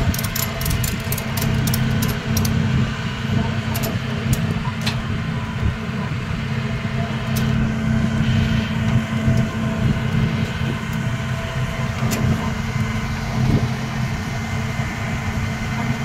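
Vehicle engine idling steadily, a low even hum. Rapid light clicking and rattling in the first couple of seconds, with a few single clicks later.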